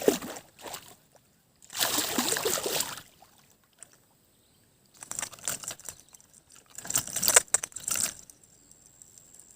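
A hooked snakehead splashing and thrashing in the water in bursts, about two seconds in and again from about five to eight seconds, as it is fought in and landed.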